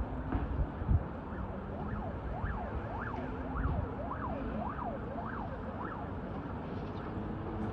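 Emergency-vehicle siren wailing up and down a bit under twice a second for several seconds, then fading out, over a steady hum of city traffic.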